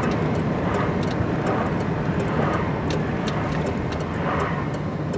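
Steady road and engine rumble heard from inside a moving vehicle's cabin, with faint scattered clicks.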